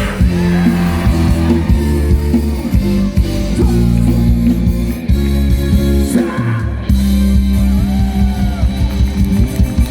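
Live band music with guitar, played loud and without a break.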